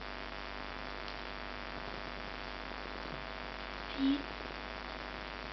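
Steady low electrical hum and hiss. A single brief, short pitched sound about four seconds in.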